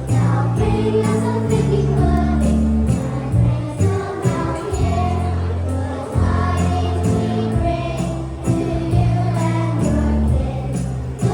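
Background music with a steady beat, jingle bells and sung voices.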